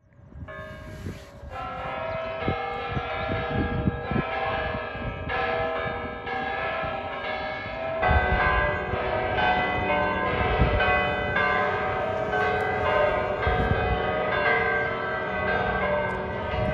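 Church bells ringing, a new stroke roughly once a second, each ringing on into the next.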